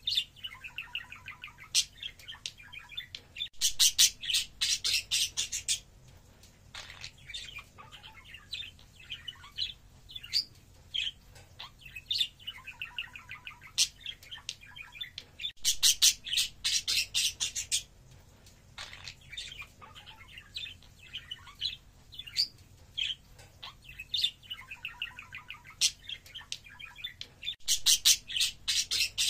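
Budgerigar warbling and chattering, a run of soft twittering notes and clicks. Three times, about twelve seconds apart, it breaks into a loud burst of fast, harsh chatter lasting about two seconds.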